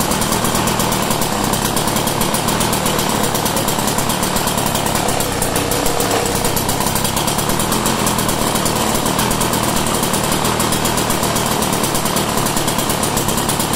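Snapper single-stage snowblower's small gasoline engine running steadily with a fast, even chatter.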